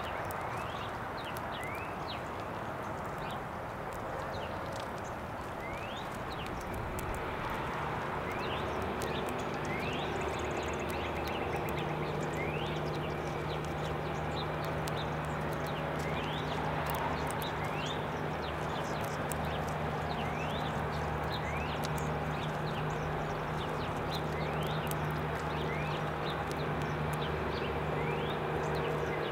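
A songbird repeating a short rising chirp every second or two, over scattered sharp clicks and a steady outdoor haze. A low steady hum comes in about a third of the way through.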